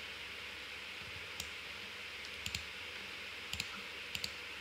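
Sharp clicks of a computer mouse, seven in all and mostly in quick pairs, over a steady faint hiss.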